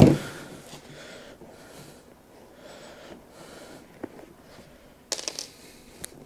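A sharp snap at the start, then soft rustling of seat fabric and foam with a few small clicks, including a quick cluster about five seconds in. This is the sound of cutters and pliers taking a missed hog ring out of a car seat cover.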